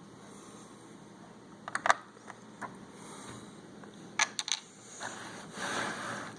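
Small hard plastic clicks and taps of Lego pieces and minifigures being handled: a few sharp clicks about two seconds in, another quick cluster a little past four seconds, then soft rustling.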